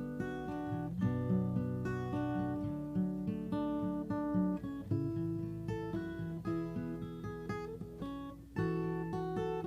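Acoustic guitar playing a chord progression, notes picked and strummed in a steady rhythm, with a short break about eight and a half seconds in before it starts again.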